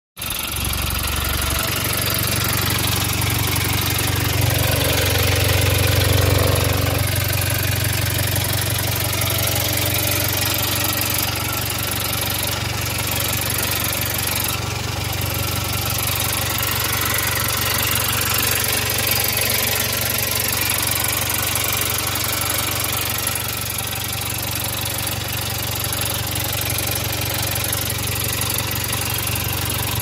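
Jaguar XE's 2.0-litre Ingenium four-cylinder turbodiesel idling steadily, heard close up in the open engine bay. It is making the abnormal noise it has started to make when cold.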